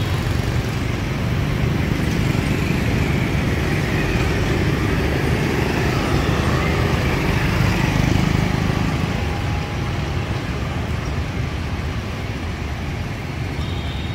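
Street traffic of motorbikes and scooters passing on the road, a steady engine-and-tyre rumble that swells as a motorbike passes close about halfway through, then eases off.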